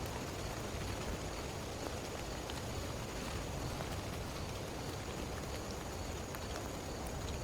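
Heavy rain falling steadily, with a low rumble underneath and a few sharp drop ticks.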